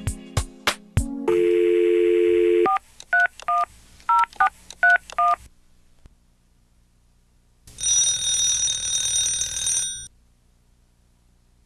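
Telephone dial tone for about a second and a half, then about seven touch-tone (DTMF) key beeps as a number is dialled. After a short pause a telephone bell rings once for about two seconds. Plucked music notes end about a second in.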